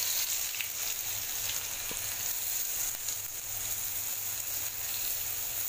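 Crushed shallots, garlic, dried red chillies and peppercorns sizzling in hot oil in an aluminium kadai: a steady frying hiss with a few faint pops.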